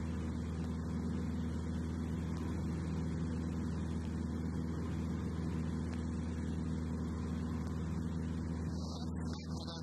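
Light aircraft's piston engine and propeller droning steadily in flight.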